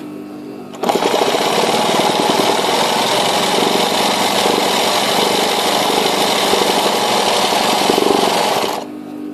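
Sewing machine running fast during free-motion embroidery, the needle stitching rapidly through hooped fabric. It starts about a second in and stops shortly before the end.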